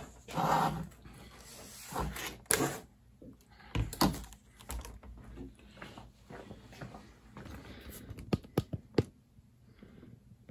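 Handling noise: scattered knocks, rubs and clicks as a foam RC glider and a radio transmitter are moved about on a wooden table, with a quick run of sharp clicks near the end.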